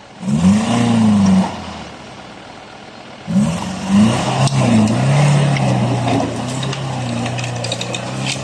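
Off-road 4x4's engine revving: one rise and fall in pitch near the start, then after a short lull it revs up again and holds a steady pitch under load for several seconds.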